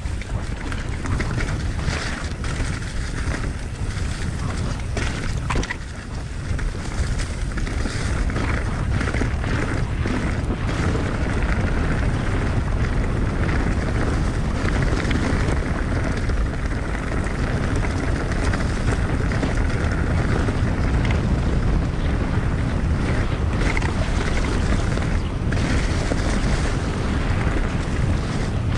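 Wind buffeting the camera microphone over the low rumble of mountain bike tyres rolling on a leaf-covered dirt trail, with scattered clicks and rattles from the bike over rough ground.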